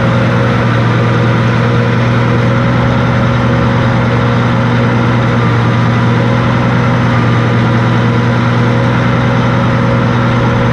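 Diesel engine of a Reichdrill T-650 W water well drilling rig running at a steady speed, a constant low hum with no change in pitch.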